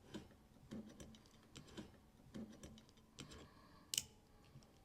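Light clicks and taps of a ground screw being fitted into a heater's wiring terminal box, with one sharper click about four seconds in.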